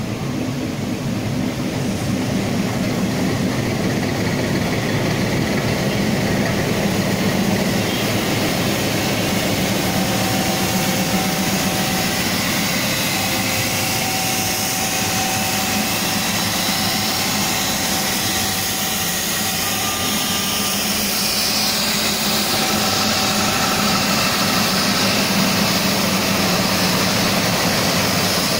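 YDM4 diesel locomotive idling close by, a steady low hum with no chuffing rhythm. A hiss grows louder over it in the second half.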